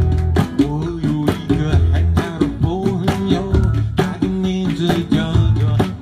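Live acoustic music: a guitar strummed in a steady beat over sustained bass notes, with a melody line moving above it.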